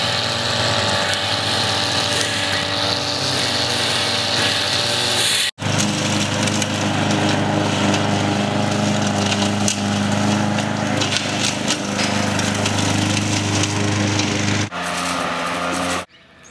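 A string trimmer's (whipper snipper's) small engine running steadily at a high pitch. After a sudden cut about five and a half seconds in, a petrol push lawn mower's engine runs steadily at a lower pitch through most of the rest.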